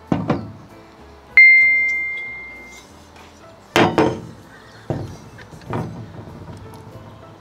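Hard objects knocking on a glass-topped table: a clink at the start, a louder knock about four seconds in as the metal helium cylinder comes onto the table, then lighter knocks. About a second and a half in, a bright 'ding' sound effect rings out once and fades.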